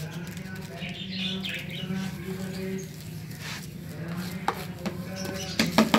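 Small birds chirping briefly over a steady low hum, with a few sharp clicks near the end.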